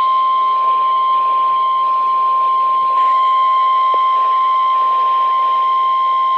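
Emergency Alert System attention tone: a single steady tone, the 1050 Hz warning alarm tone of NOAA Weather Radio, sounding over radio hiss. It signals that a warning message is about to be read.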